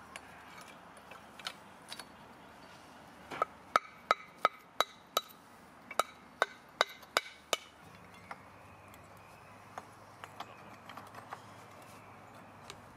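Hammer striking Cotswold limestone: a run of about eleven sharp, ringing blows, roughly three a second with a short break midway, a few seconds in. Lighter clinks of stone knocking on stone come before and after.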